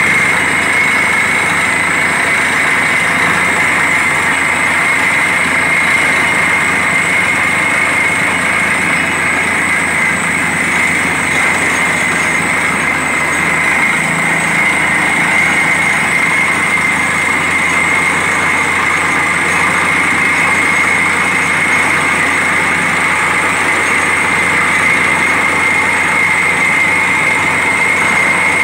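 Truck-mounted borewell drilling rig running under load while drilling: a loud, unbroken machine drone with a steady high whine on top, as compressed air blows rock dust and cuttings up out of the bore.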